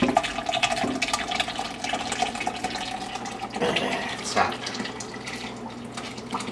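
Hot gravy and pan drippings pouring from a metal roasting pan through a mesh strainer into a saucepan, splashing and trickling steadily. There are a couple of louder knocks about four seconds in.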